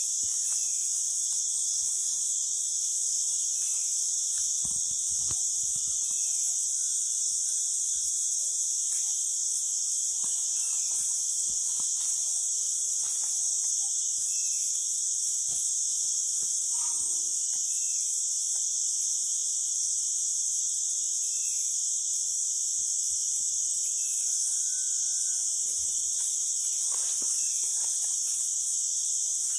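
Steady, high-pitched drone of a jungle insect chorus, with faint scattered ticks and short chirps beneath it.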